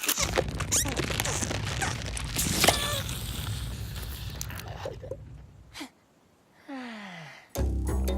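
A busy mix of cartoon sound effects and non-speech character noises with sharp clicks and a low rumble, then a sliding drop in pitch about seven seconds in. Music starts just before the end.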